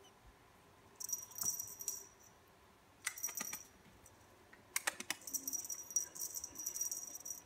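A cat toy jingling in three bursts as a cat bats and bites at it, with a few light knocks in the middle.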